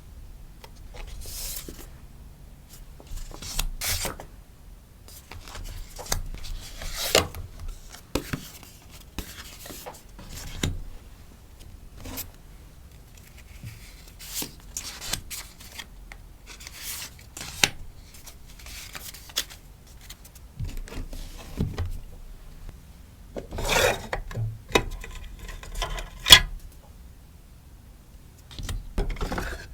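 Hands rustling and crinkling plastic sticker packaging while packing an order: irregular short rustles and rubs, with one sharp click near the end.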